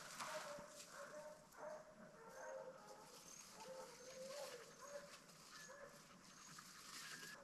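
Faint baying of a pack of hunting hounds in full cry on a deer's trail: many drawn-out, wavering cries overlapping one another.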